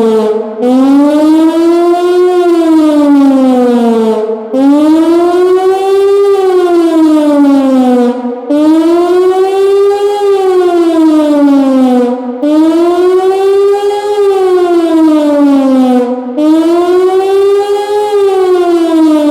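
Pintsch Bamag high-performance siren (HLS) wailing, its pitch rising and falling about every four seconds with a short break between cycles: the rising-and-falling tone of the German public warning signal (Warnung der Bevölkerung).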